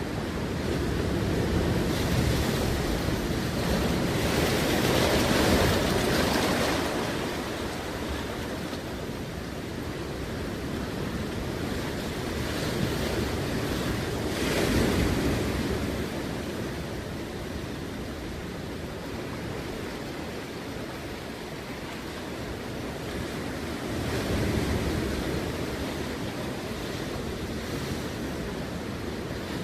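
Ocean waves breaking and washing in surges every several seconds, with wind buffeting the microphone.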